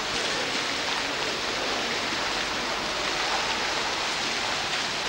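Steady rush of water splashing from a tiered fountain into its basin.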